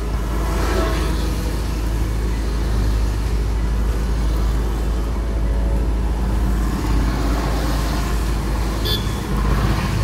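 Road traffic passing, a steady low rumble with whooshes that swell and fade as vehicles go by, and a brief high beep about nine seconds in.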